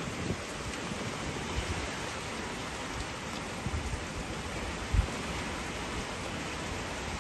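Steady hiss of rain falling, with a few brief low thumps, the strongest about five seconds in.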